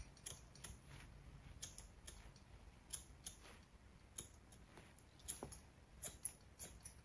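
Thinning scissors snipping dog hair around a small dog's eyes and face: quiet, irregular snips at an uneven pace.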